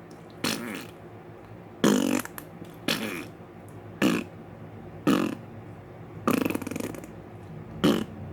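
A man making short, raspy, fart-like sound effects with his mouth, seven in a row about a second apart, the second-to-last one longer.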